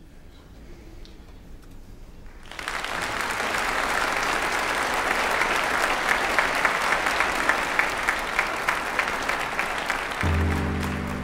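A large crowd applauding in a hall, starting suddenly about two and a half seconds in after faint room hiss and going on with dense, fast clapping. Background music with held notes comes in near the end.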